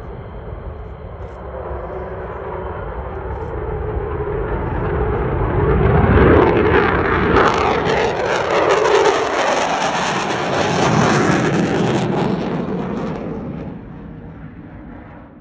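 F-15 fighter jet's twin turbofan engines at takeoff, growing louder as the jet climbs out and passes close overhead, loudest about six seconds in. Its pitch slides downward as it goes by, and the sound fades away near the end.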